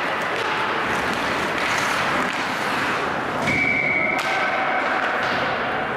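Ice hockey play: skates cutting the ice and sticks knocking the puck, over steady rink noise. A short, steady whistle blast sounds about three and a half seconds in, and a sharp knock follows just after.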